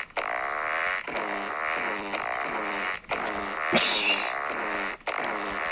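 Recorded fart sound effects played back from the DJ Fart smartphone app's mixer, repeating in a loop about once a second, with a brief hiss about four seconds in.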